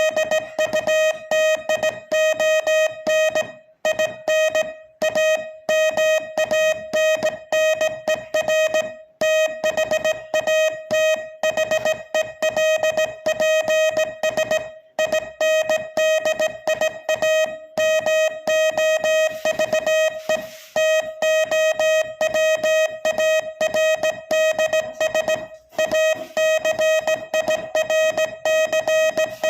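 Morse code sent as a keyed, steady-pitched beep: rapid dots and dashes at a little over 20 words per minute, with brief pauses between letters and words.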